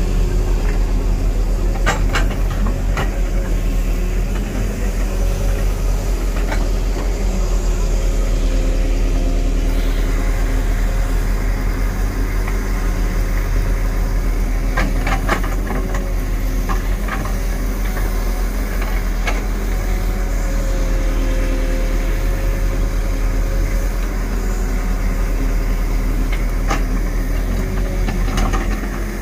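JCB JS140 tracked excavator's diesel engine running steadily as the machine digs, with a few sharp knocks as the bucket bites into and lifts the soil.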